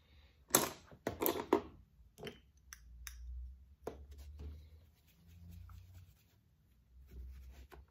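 Rustling and crinkling as makeup items are handled, strongest for about a second near the start, followed by a scatter of small clicks and light knocks.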